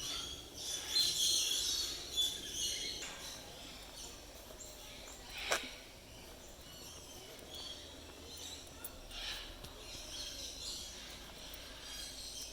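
Aviary birds chirping and calling, busiest in the first three seconds, with one short sharp call about five and a half seconds in and scattered fainter chirps after.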